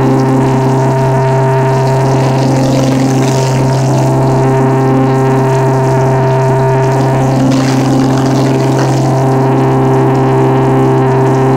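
Engines of a small twin piston-engine propeller plane running steadily at constant power, a loud, even drone.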